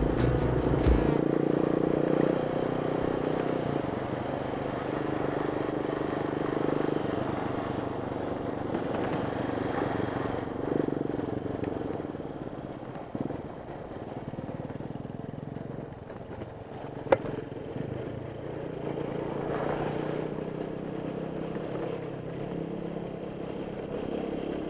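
Honda Bros 160's single-cylinder engine running at a steady road speed on a gravel road, with wind and tyre noise. It is louder at first and eases off gradually. A single sharp click comes about two-thirds of the way through.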